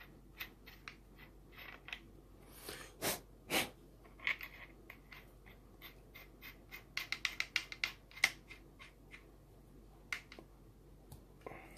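Small irregular clicks, taps and scrapes of an angle grinder's spindle and a rubber drive wheel being handled and fitted together by hand, with a quick run of clicks about seven to eight seconds in.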